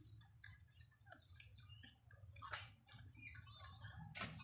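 Rabbits chewing food: a quiet run of small, irregular crisp crunches and nibbling clicks.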